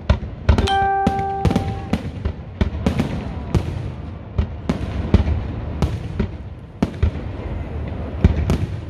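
Aerial fireworks display: a rapid, irregular run of shell bursts and bangs. About half a second in, a steady pitched tone sounds for just over a second.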